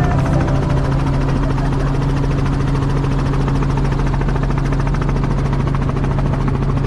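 Helicopter's engine and rotor in flight heard from inside the cabin: a loud, steady drone with a strong low hum and a fast, even pulsing.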